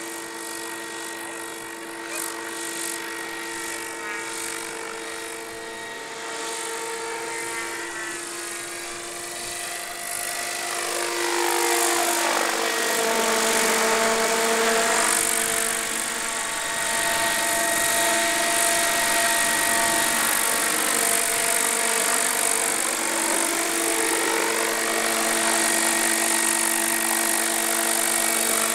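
Giant-scale electric RC scale helicopter (Roban Airwolf 800-size) in flight, its motor and rotor making a steady whine. The pitch of the whine sweeps down around ten to thirteen seconds in and back up a little before the end, and the sound grows louder from about twelve seconds in.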